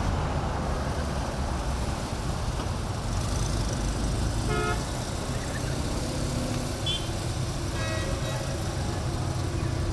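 Steady low rumble of slow-moving car engines and road noise from a classic-car parade, with two short car-horn toots, one about halfway through and one about eight seconds in.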